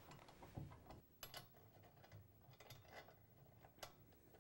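Near silence with a few faint, scattered metallic clicks and taps from a steel axle bracket and its bolts and lock nuts being handled against the cart frame.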